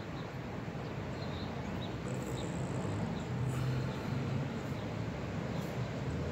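Steady low background hum, with a few faint high chirps.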